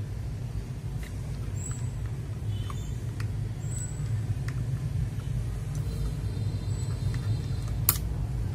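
Mechanical keyboard switch pressed several times in testing, giving scattered sharp clicks with one stronger click near the end, over a steady low rumble. The freshly fitted switch is not yet fully seated in the board.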